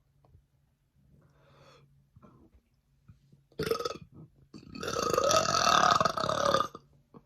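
A woman burping on purpose, her burps brought up by ginger ale. There is a short burp about three and a half seconds in, then a long, loud burp lasting about two seconds.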